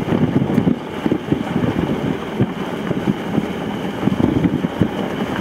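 Wind buffeting the camera's microphone on an exposed mountain ridge: a loud, gusty, uneven rumble.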